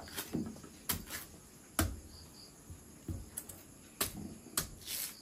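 A series of sharp knocks and clicks at uneven intervals, about eight in five seconds.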